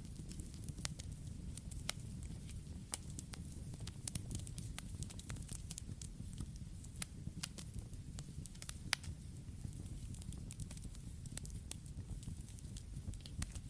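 Wood campfire burning, with irregular crackles and sharp pops over a low, steady rumble of flame; one louder pop about two-thirds of the way through.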